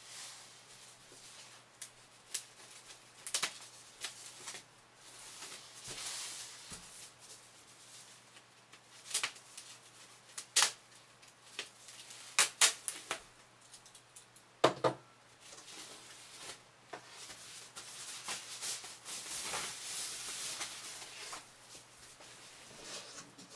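Packaging being handled while a boxed speaker is unwrapped: tape picked and peeled off its protective wrap, with crinkling and rustling and scattered sharp clicks and crackles.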